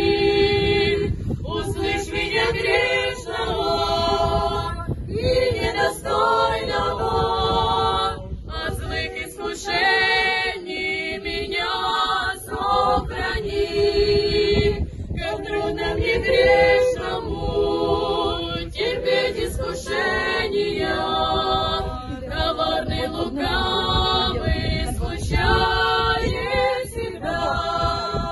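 A small group of pilgrims, mostly women's voices, singing an Orthodox spiritual psalm to the Mother of God together without accompaniment, in phrases with brief breaths between them. A low rumble runs under the voices for much of it.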